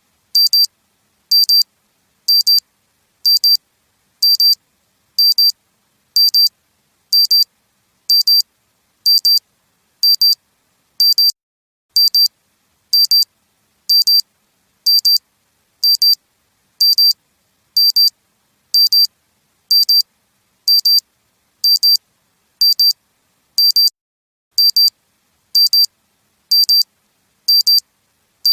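Analog wristwatch alarm beeping: short, high-pitched electronic beeps repeating evenly about once a second.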